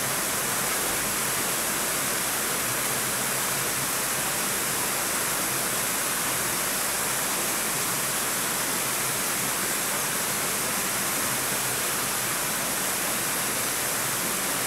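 A steady, even hiss that does not change, with nothing else standing out above it.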